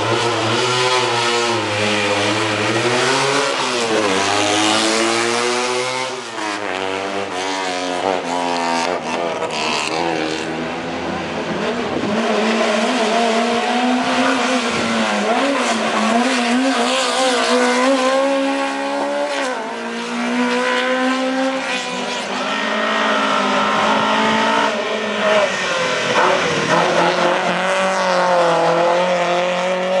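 Historic racing cars' engines revving hard one after another, climbing in pitch through each gear and dropping at the shifts, with the pitch rising and falling repeatedly as the cars accelerate away and pass.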